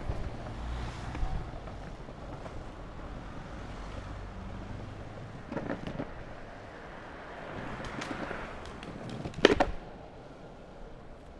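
Longboard wheels rolling, with a heavier rumble over block paving at the start and a smoother run on asphalt after. Sharp clacks come a few times as the board goes over bumps, the loudest one near the end.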